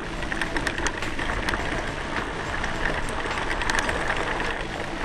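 Ride noise from a camera on a mountain bike rolling over a rocky dirt track: a steady rush with frequent sharp rattles and clicks as the bike jolts over stones.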